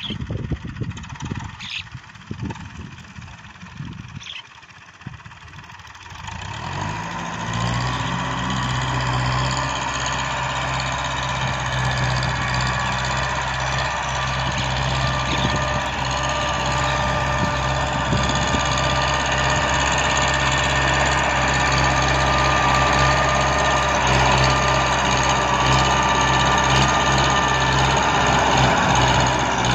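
Gusts buffeting the microphone at first, then a TAFE tractor's diesel engine comes in, rises in pitch about seven seconds in and runs steadily while it pulls a rotary tiller through the field. The engine gets gradually louder toward the end.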